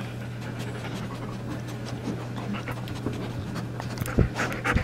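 German Shepherd puppy panting rapidly and close up, with two louder thumps near the end as it presses against the camera.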